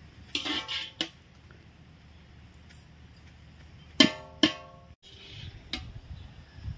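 Metal ladle striking a large metal cooking pot: irregular clangs, each ringing briefly. A few come near the start and the loudest pair about four seconds in.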